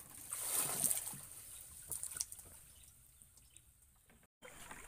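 Water pouring and dripping off a wire-mesh fish trap as it is hauled at the side of a wooden boat, loudest in the first second or so and then tailing off into trickles, with a couple of light knocks about two seconds in.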